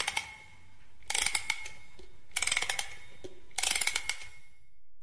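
Clicking sound effect: four short bursts of rapid ratchet-like clicks, about a second and a quarter apart.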